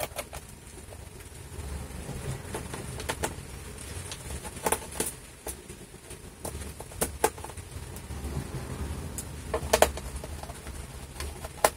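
Screwdriver undoing small screws from a laptop's plastic base cover: irregular light clicks and taps of the bit, screws and plastic, over a low hum.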